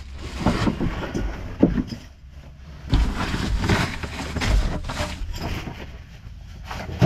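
Boards of an old wooden shed being pried up and pulled apart: irregular creaking and scraping of wood, with a sharp knock about a second and a half in.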